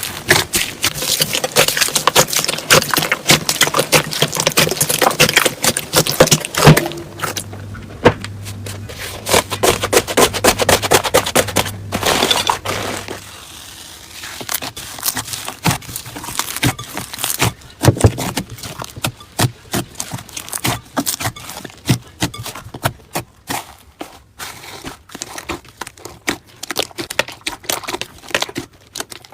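Slime being squeezed and worked by hand, giving dense crackling and popping clicks that thin out to sparser, separate clicks about halfway through.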